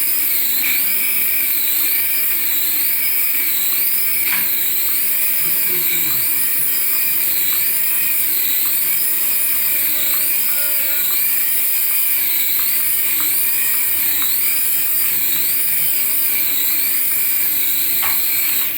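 Electronic sound effect from a toy's small speaker: a loud, steady hiss with a high rising-and-falling sweep that loops about once a second.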